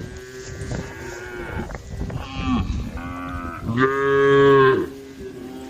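Several cows mooing, their calls overlapping, with one loud, drawn-out moo about four seconds in.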